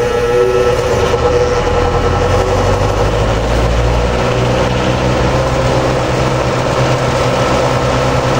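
Late-1950s Montgomery Ward Tru-Cold four-blade box fan, made by Lasko, running steadily with a motor hum, a motor the owner thinks could use some oil. Wind rumbles on the microphone, swelling a couple of seconds in.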